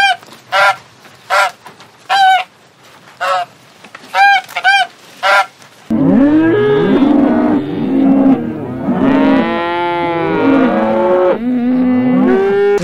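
A domestic goose honking in short, repeated calls, about eight in the first six seconds. Then, from about six seconds in, several Holstein dairy cows mooing in long, overlapping calls.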